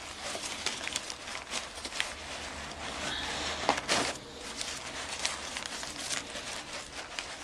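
Packaging being handled and unwrapped, rustling and crinkling with scattered clicks and taps; the sharpest click comes a little before the middle.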